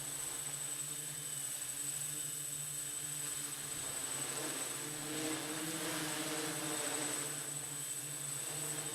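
MR6 hexcopter's six electric motors and 14-inch propellers humming as it holds a hover in strong gusty wind, with wind noise underneath. About halfway through, the motor pitch wavers and shifts for a few seconds as the craft is buffeted by a gust and keeps its position.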